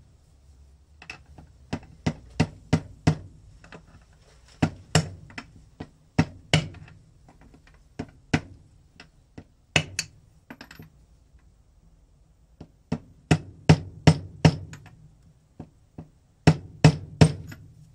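Mallet striking a socket used as a seal driver, tapping the 20×35×7 mm crankshaft oil seal into the aluminium crankcase of an Aprilia RX50's D50B0 two-stroke engine. Many sharp knocks come in uneven runs with short pauses between them as the seal is driven in straight.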